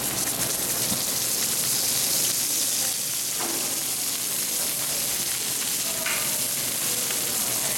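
Fish fillets searing in oil on a hot cast-iron griddle: a steady sizzle.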